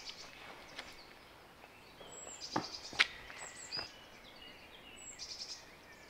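Songbirds singing short, repeated high chirping phrases, with a few sharp clicks or taps around the middle, the loudest about halfway through.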